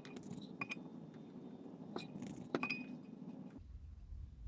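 Hands pressing and squashing soft clay wads onto a metal pottery wheel head around an upturned leather-hard teapot, with a few sharp clinks. A low rumble begins near the end.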